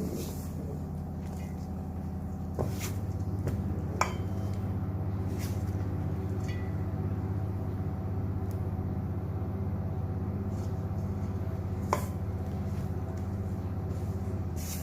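A utensil clinking now and then against a mixing bowl as flour, milk and egg are stirred together into dough, about five separate knocks over a steady low hum.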